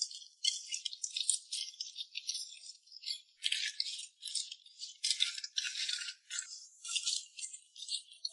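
Raw mantis shrimp being stirred in a bowl with chopsticks to work in a marinade, their shells clattering and scraping in quick, irregular bursts.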